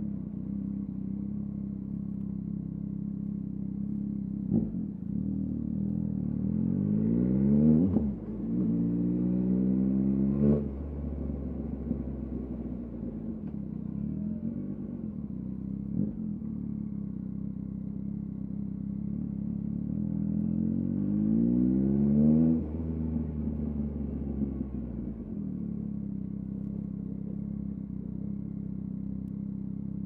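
2023 Yamaha MT-09's 890 cc inline-three through a LeoVince LV Race exhaust, riding at low revs. It accelerates twice, the pitch climbing. The first pull has a brief dip partway, likely a gear change, and each pull cuts off sharply before the engine settles back to a steady low note. A few sharp clicks come through along the way.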